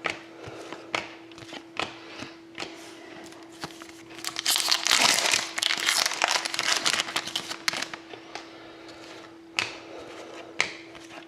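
Foil wrapper of a hockey card pack being torn open and crinkled, a dense crackling stretch of a few seconds in the middle. Before and after it, cards click and slide as they are handled, over a faint steady hum.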